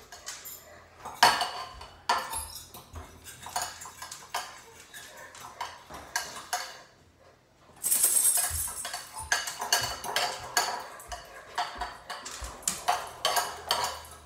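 A utensil clinking and scraping against a bowl as eggs are stirred, in quick irregular taps. After a brief pause just past the middle the stirring picks up, denser and louder.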